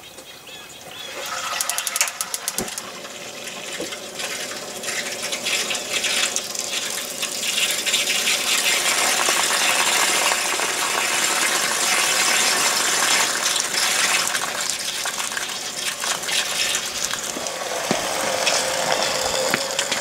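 Camplux portable propane on-demand water heater running water through its freshly Alumiweld-repaired coil for its first test under pressure. A burst of rapid clicking comes about two seconds in, then a steady rush of flowing water that builds and holds.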